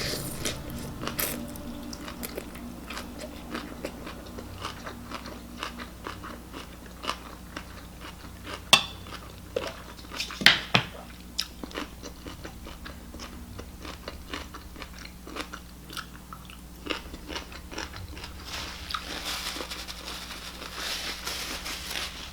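Close-up mouth sounds of a person eating ramen: chewing and biting, with a stream of small wet clicks and smacks and a couple of louder ones near the middle.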